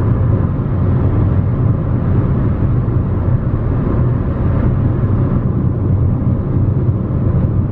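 Steady low rumble of road and engine noise inside a moving car's cabin, even and unchanging.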